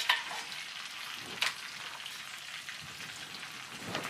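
Melted butter and garlic sizzling under pieces of cooked crab on a large steel disco griddle: a steady frying hiss with a few sharp pops.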